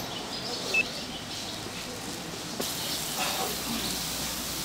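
Oil sizzling in a deep fryer as handmade Korean fritters (twigim) cook, a steady hiss that grows louder and brighter about two and a half seconds in. A brief high-pitched tone sounds about a second in.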